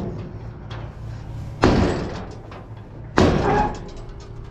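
Two loud metallic bangs about a second and a half apart, the side board of a farm grain trailer being unlatched and dropped open, over the steady low hum of an idling engine.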